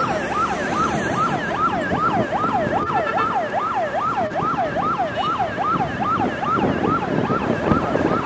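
Vehicle siren sounding in a fast yelp, its pitch sweeping up and down about two and a half times a second over the road and engine noise of moving traffic. The siren grows fainter near the end.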